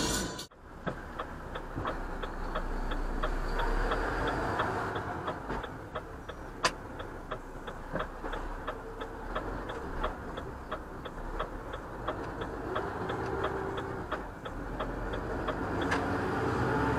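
Turn-signal indicator clicking steadily in a truck cab, about three ticks a second, over the steady noise of the engine and road.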